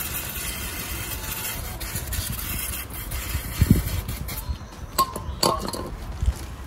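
Aerosol spray can hissing steadily as it sprays the brake caliper for about three seconds, then stopping; a dull thud follows, and a couple of metallic clinks near the end.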